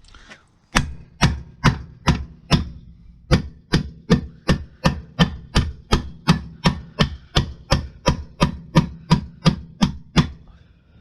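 Repeated hammer strikes at an even pace, about three a second, stopping shortly before the end.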